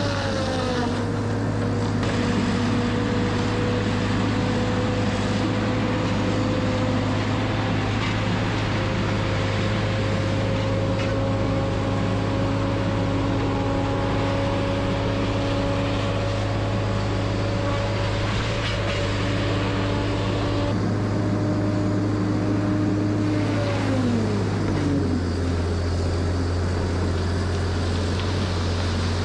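Tracked feller buncher running hard with its disc saw head spinning: a steady low engine hum under high whining tones. About 24 seconds in the whine falls away and the engine note drops lower.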